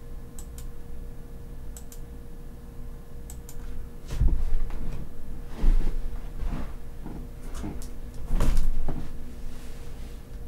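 Light clicks in pairs, then several dull thumps and knocks of things being handled, over a faint steady hum.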